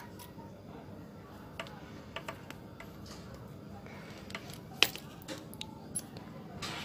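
Scattered small clicks and rustles of hands working a needle and thread through braided rope during hand-stitching, with one sharper click about five seconds in, over faint steady background noise.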